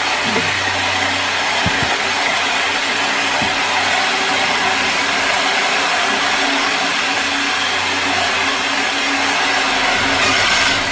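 Steady, loud whirring machine noise with a low hum underneath, unchanging throughout.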